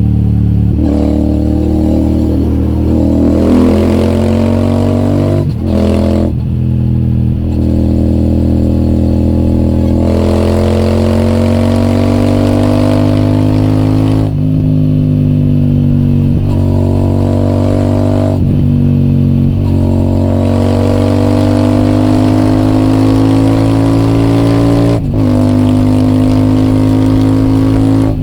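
Royal Enfield Super Meteor 650's 648 cc parallel-twin engine breathing through an aftermarket AEW TE 202 exhaust under way. The engine note climbs steadily in pitch in each gear and drops briefly at each of several gear changes.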